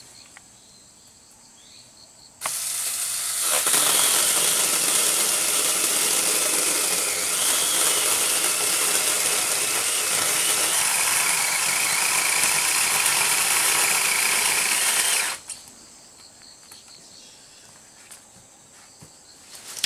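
A small handheld electric chainsaw starts up a couple of seconds in, gets louder as it bites into a slim tree trunk about a second later, cuts steadily for roughly twelve seconds, then stops abruptly.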